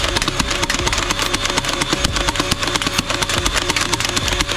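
Motorized multi-barrel toy foam-dart machine gun firing on full auto: a motor running under a fast, even stream of clicks as darts feed from the belt and shoot out.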